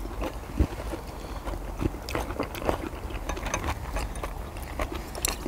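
Close-up chewing and biting on grilled pork belly and deodeok wrapped in leaves, with many small scattered clicks and crunches.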